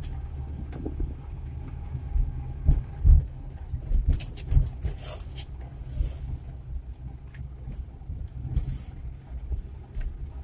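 Suzuki Carry 1.0's small four-cylinder engine running steadily under way, heard from inside the cab, with scattered clicks and knocks from the cab and a few low thumps from the road.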